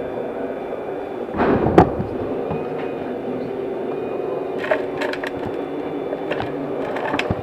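Scale RC Komatsu WA600 wheel loader's hydraulics running with a steady whine as it lifts and tips a bucket of topsoil. There is a loud clatter with a sharp crack about a second and a half in, and scattered clicks and patter from the middle on as soil starts falling into the truck's plastic dump body.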